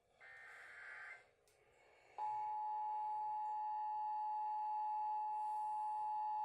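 Emergency Alert System broadcast signal over AM/FM radio. A short buzzy data burst, like the end of the digital header, comes in about the first second. A little over two seconds in, the steady two-tone EAS attention signal starts and holds, two pitches near 850 and 960 Hz sounding together.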